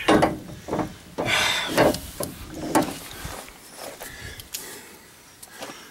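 Irregular scraping, rubbing and knocking of tools and parts being worked under a truck's front suspension, in short uneven bursts with a longer scrape about a second and a half in.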